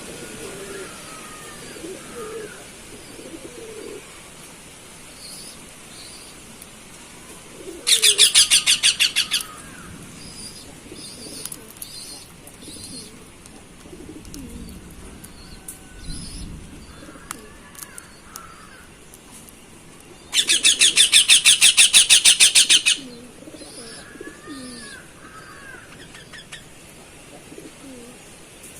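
Cockatiels making scattered soft chirps and low calls. Twice, about eight seconds in and again about twenty seconds in, a loud burst of rapid, evenly pulsed sound rings out; the second burst lasts about two and a half seconds.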